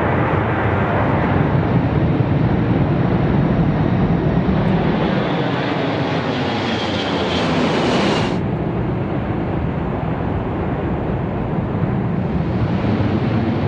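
Airbus A340 flight deck noise in the initial climb after takeoff: a steady rush of engine and airflow noise. About eight seconds in, the higher hiss drops away suddenly and the noise goes on lower and duller.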